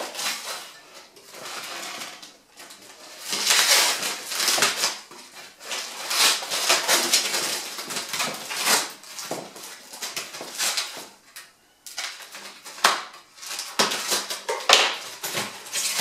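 Protective foam and plastic packaging being pulled and torn off a bicycle frame: irregular rustling and crinkling that comes and goes in spells, with small knocks of handling.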